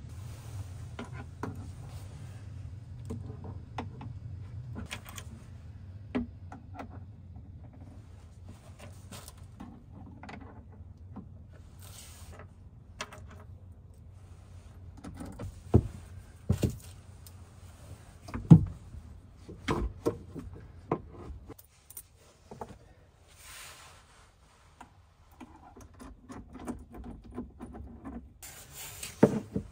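Heavy battery cables and copper lugs being handled and fitted onto the terminals of a lithium battery bank: scattered clinks and knocks of metal hardware, and cable rubbing on plywood. A low steady hum runs underneath and stops about three-quarters of the way through; one sharp knock a little past the middle is the loudest sound.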